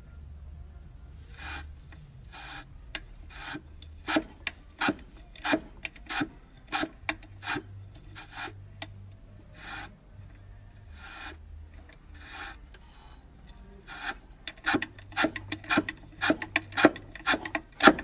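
An irregular series of short rasping, scraping strokes over a faint low hum, coming louder and closer together in the last few seconds.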